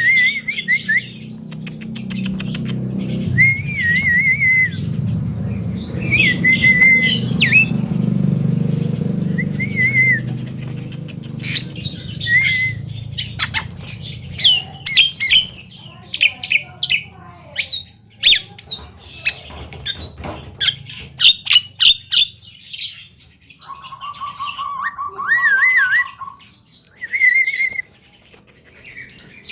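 Javan myna calling: short warbling whistles and sharp, clicky squawks, with a steady, fast-pulsed buzz lasting about three seconds near the end. A low hum runs underneath through the first half.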